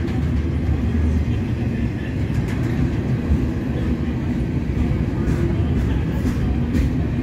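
Double-stack intermodal train of container-laden well cars rolling past, a steady low rumble of steel wheels on rail with a few faint clicks.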